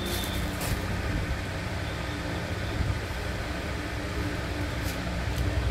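Steady low mechanical hum, with a few faint rustles as a cloth suit is unfolded out of its plastic packaging.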